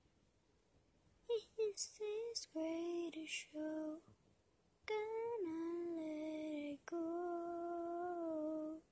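A woman singing alone, unaccompanied: a slow melody that starts about a second in with a few short syllables, then long held notes.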